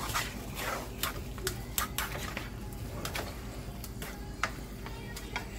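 White plastic spatula and fork tossing stir-fried rice noodles and vegetables in a nonstick frying pan, making irregular clicks, taps and scrapes against the pan.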